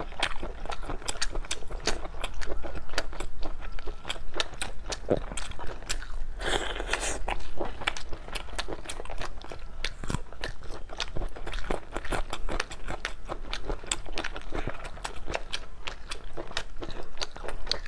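Close-miked chewing and biting of braised meat: a steady stream of wet mouth clicks and smacks, with a brief rush of noise a little over six seconds in.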